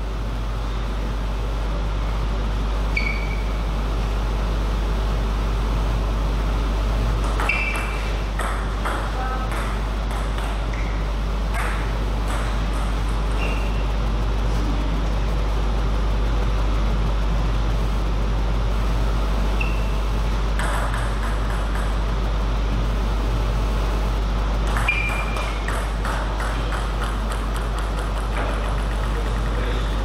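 Table tennis rallies: the celluloid-type ball clicking off bats and table in two bursts of play, one about 8 seconds in and one about 21 seconds in, with short ringing pings between, over a steady low hum.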